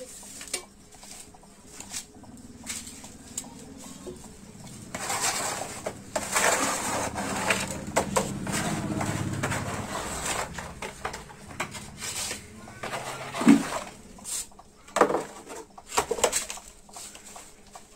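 Steel trowel scraping and spreading cement mortar, buttering the back of a ceramic wall tile, followed by a few sharp knocks and taps of the trowel and tile.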